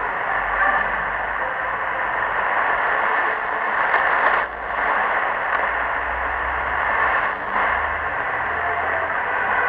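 Shortwave radio receiver tuned to 6965 kHz, with a weak pirate broadcast buried under heavy static and interference noise. The sound dips briefly twice, about halfway through and near the end.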